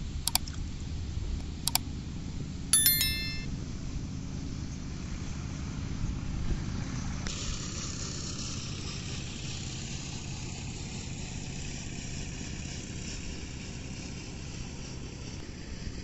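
Two mouse clicks about a second and a half apart, followed by a short bell-like notification ding: the sound effects of a like-and-subscribe button animation. A steady rushing of wind and open-air noise runs underneath and turns brighter and hissier about seven seconds in.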